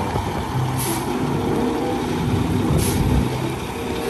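Dump truck's diesel engine running steadily as it creeps along spreading gravel from its raised bed, with two short hisses about a second in and near three seconds.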